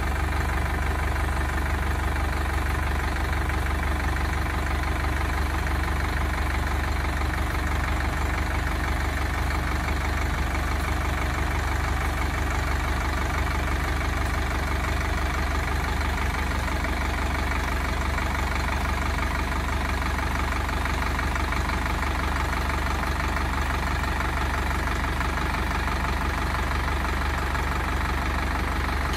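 Indo Farm 3065 DI tractor's diesel engine running steadily at low revs while the tractor creeps forward in its slowest gear, with both low ranges engaged.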